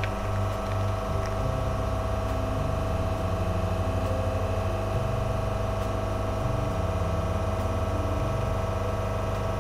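Espresso machine's pump running steadily as a double shot extracts through the portafilter into two shot glasses.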